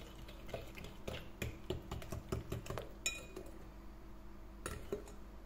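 Metal spiral whisk beating egg, sugar and oil batter in a glass bowl, clicking against the glass about four times a second. About three seconds in comes one ringing clink, and the strokes then slow and thin out.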